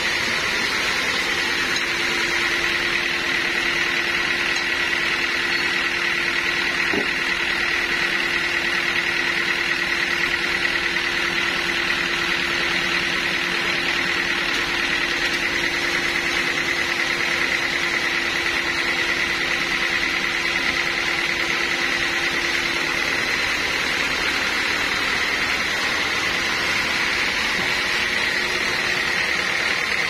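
Band sawmill running steadily: a constant machine drone with a high whine over a lower hum.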